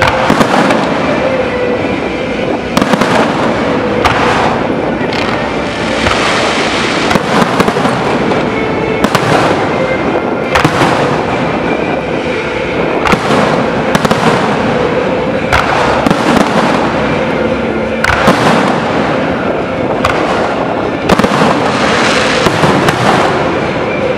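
Fireworks show: shells bursting with a loud bang every second or two over a continuous crackle.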